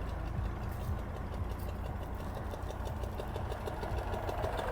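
Tractor engine running steadily, with an even, rapid beat.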